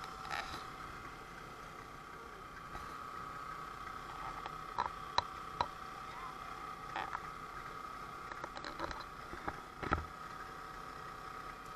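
Steady hum of the bowfishing boat's motor running low, with scattered clicks and knocks of gear on the boat and a heavier thud about ten seconds in.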